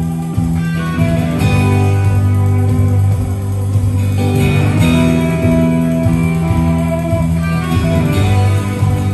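A band playing a guitar-led instrumental passage with a strong bass line and no singing.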